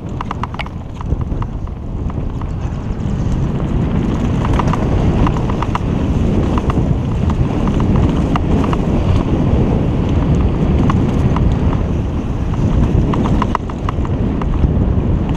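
Mountain bike descending a dirt singletrack: wind buffeting the microphone and tyres rumbling over the dirt, with repeated spells of rapid clicking and rattling from the bike.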